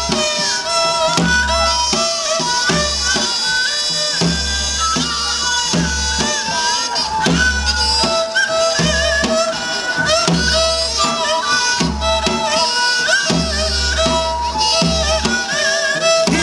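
Live Korean traditional folk music accompanying a mask dance: a melody with bending, ornamented notes played over a slow, even drum beat and sharp percussion strokes.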